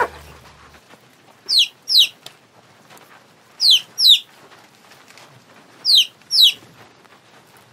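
Baby chicks peeping: three pairs of short, high peeps, each falling in pitch, about two seconds apart.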